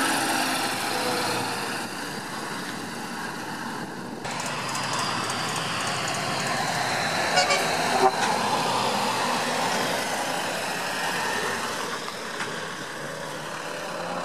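Heavy lorries driving past, their diesel engines running, with tyre noise. The sound changes abruptly about four seconds in.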